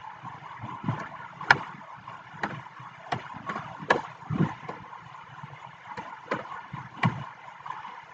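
Computer keyboard keys pressed one at a time while a number is typed, giving irregular single clicks about once a second over a steady background hiss.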